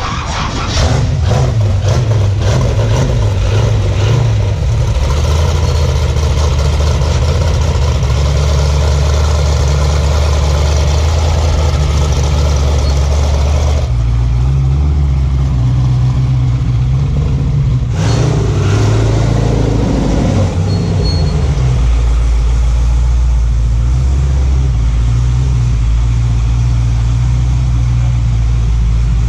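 A sandrail's 6.0-litre LS V8 with LS3 heads running at low revs, a deep steady exhaust note that shifts pitch a couple of times about halfway through as the throttle is worked.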